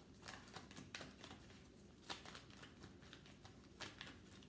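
A deck of tarot cards shuffled by hand: faint, irregular soft clicks as the cards slide and tap against each other.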